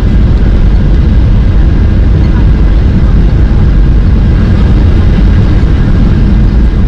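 Loud, steady rumble of a Boeing 737-800's CFM56 jet engines and airframe, heard inside the passenger cabin.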